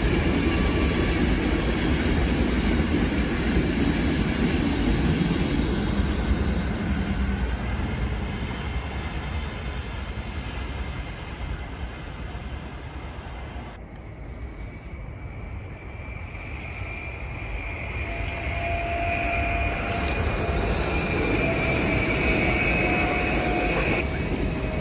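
Electric trains on the Brenner railway: a rumbling rail noise fades away over the first half. Then an approaching train grows louder, with a steady high whine over its running noise.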